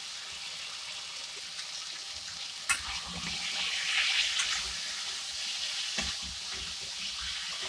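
Potatoes, tomatoes and spice masala sizzling in hot oil in a kadai while a spatula stirs them, a steady hiss that grows louder once the stirring starts about three seconds in, with a single sharp knock of the spatula against the pan at that point.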